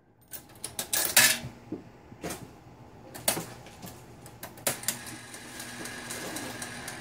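Seeburg 3W-1 jukebox wallbox taking a coin: a run of sharp metallic clicks and rattles as the coin drops through the coin mechanism, loudest about a second in. A clunk follows as the selector keys are pushed, then a steady mechanical whirr as the wallbox sends the song selection.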